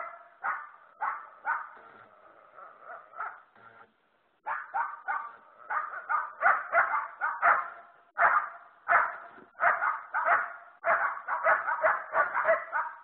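Dogs barking repeatedly, about two barks a second, with a short pause about four seconds in and quicker, overlapping barks toward the end.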